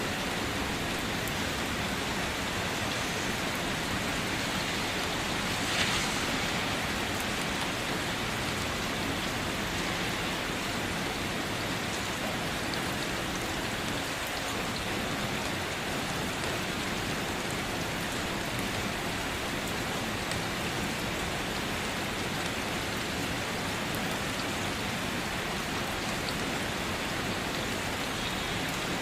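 Steady rain falling and pattering on surfaces, with one brief louder, sharper moment about six seconds in.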